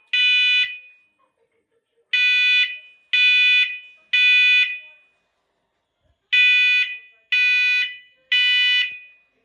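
First Alert smoke and carbon monoxide alarm sounding its low-frequency tone during a test. The loud beeps come in groups of three, about one a second, with a pause of about a second and a half between groups. This is the three-beep pattern that signals smoke.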